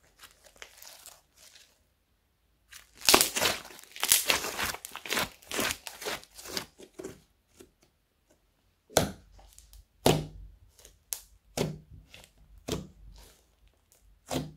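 Fluffy foam slime being stretched, squeezed and pressed by hand, giving a run of irregular short crackling and tearing sounds with a couple of short pauses.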